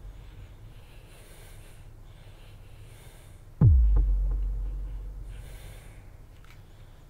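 A deep cinematic boom whose pitch drops quickly, a sub-drop hit in the soundtrack, strikes about three and a half seconds in and dies away slowly over a few seconds; the tail of an earlier one fades at the start. Between the booms, someone breathes heavily about three times.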